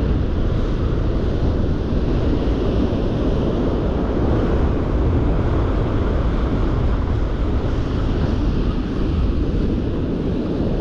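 Strong wind blowing across the microphone over the steady wash of breaking surf, loud and unbroken.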